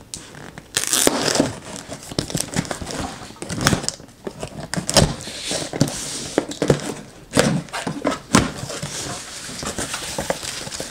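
Cardboard box being cut and opened by hand: packing tape tearing, cardboard flaps scraping and rustling, with a few sharp knocks as the box is handled.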